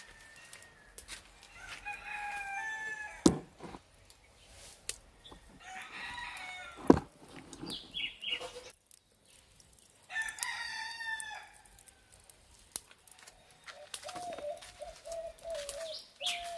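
A rooster crowing three times, each crow about a second and a half long and falling in pitch at its end, with a few sharp knocks in between.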